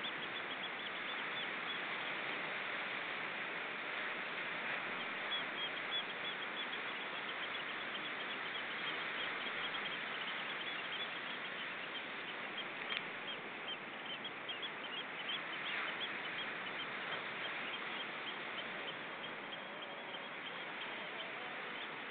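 Waves breaking on a stony shore make a steady rush, with a dense chatter of short, high bird calls over it that thins out in the last few seconds.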